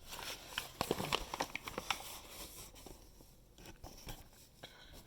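Light handling noises of food packaging: a quick run of small taps and crinkles in the first couple of seconds, then a few scattered faint ones.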